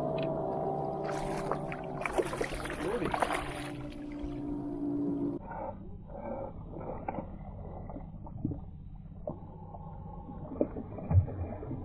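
Spinning reel whirring with a steady pitched hum while a hooked smallmouth bass is being fought. The hum stops about five seconds in, leaving lighter scattered sounds.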